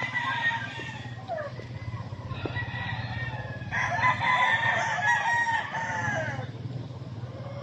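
Roosters crowing: two long crows, the second and louder one starting about halfway through, over a low steady hum.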